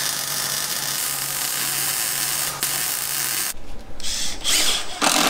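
Arc welding: a steady hiss with a low hum for about three and a half seconds. Then, after a sudden change, a cordless drill runs in three short bursts, driving screws through ratchet straps into a wooden pallet.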